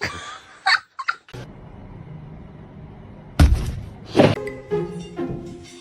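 Background music with held notes, broken about three and a half seconds in by a sharp thump and a second loud burst just after; a few short sharp sounds come in the first second and a half before the music.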